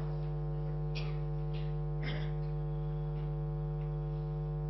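A steady electrical hum made of several fixed tones, holding level throughout, with faint brief noises about one and two seconds in.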